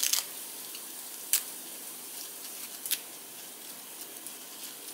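Fresh lettuce leaves torn apart by hand: a few crisp snaps and crackles over a steady hiss.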